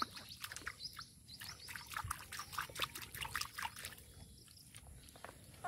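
Wet mud squelching as a hand digs into a waterlogged muddy patch. It comes as a quick, irregular run of small wet pops and crackles that thins out about four seconds in.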